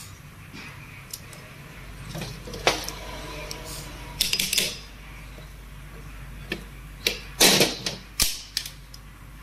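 Steel gearbox gears and a pair of pliers clinking and clicking against each other as a gear is fitted onto the shaft of a Bolero Camper manual gearbox. Irregular sharp metallic clicks, one ringing briefly a little under three seconds in, with louder clusters about four seconds in and near the end.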